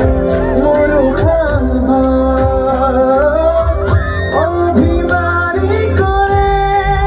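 Song with a solo voice holding and bending notes over instrumental backing and a steady bass line.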